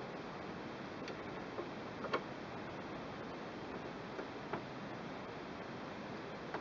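A Phillips screwdriver tapping and clicking against a machine screw as it is fitted into the screw head: about six faint, short clicks, scattered over a steady hiss.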